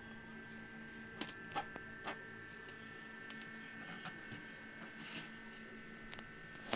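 Steady hum of a homemade egg incubator's small electric fans and thermostat controller, with a faint high chirp repeating about twice a second and a few sharp clicks, the loudest near the end.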